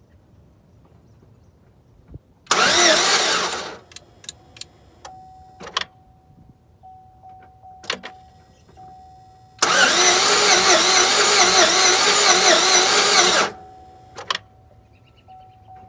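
2007 Chevrolet Tahoe's V8 cranked by the starter twice, a short crank and then a longer one of about four seconds, without catching: a crank-no-start. A steady electronic tone and a few clicks come between the two cranks.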